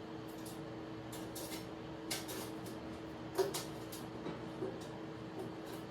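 Kitchen things being put away: a handful of light knocks and clatters of items and cupboard doors, the sharpest about halfway through, over a steady low electrical hum.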